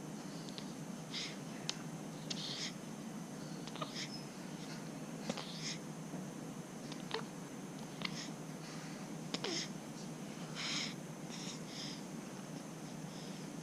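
Baby's soft breathy snuffles and short puffs of breath, about one every second or so, with a few small clicks over a steady low hum; no burp comes.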